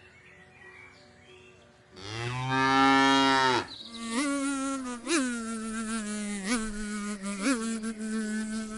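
A cow moos once, a long low call about two seconds in. It is followed by an insect buzzing steadily, its pitch flicking up briefly several times.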